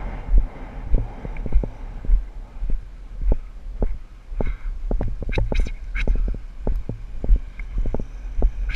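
A horse moving at a steady pace on turf, heard from the saddle: rhythmic low thuds of its strides, a bit under two a second, with sharp clicks and rattles partway through.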